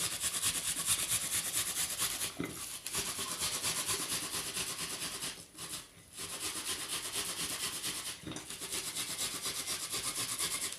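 A red onion being grated on a fine metal hand grater: quick, even rasping strokes, about four a second, with a short pause a little past halfway.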